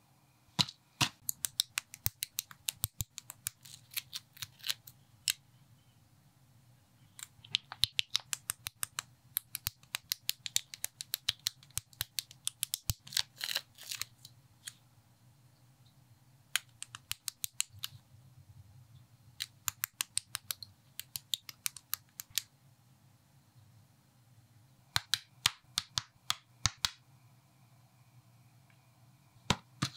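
Plastic Lego-compatible building bricks clicking and snapping together as they are handled and pressed into place, in quick runs of sharp clicks with pauses between, plus a paper sticker sheet being handled near the middle.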